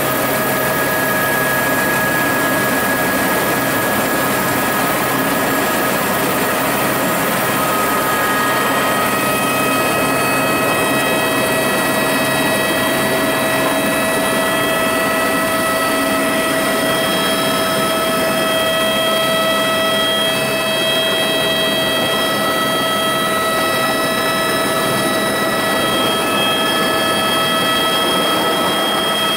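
Steady engine drone with several constant whining tones over a broad rushing hiss, unchanging in loudness throughout.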